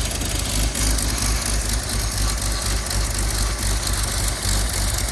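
A 1929 Buick's straight-six engine idling steadily with a low, even pulse.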